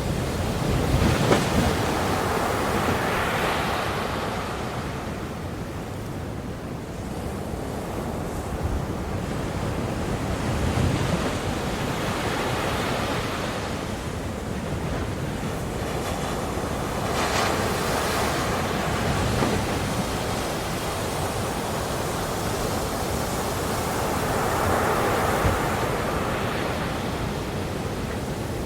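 Ocean surf: waves breaking and washing up the shore, the rush of water swelling and falling back several times. There are sharper crashes about a second in and again about two-thirds of the way through.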